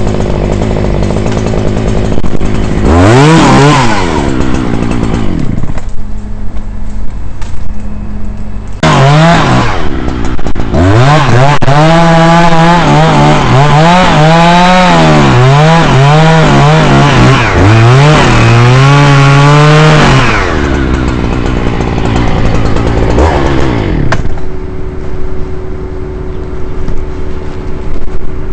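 Chainsaw revved briefly about three seconds in, then held at full throttle for about ten seconds while cutting dead horse chestnut wood, its pitch dipping and recovering under load, before dropping back to a low steady running note.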